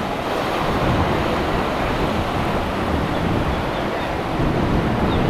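Wind buffeting the microphone over the steady rush of surf and waves in an ocean inlet.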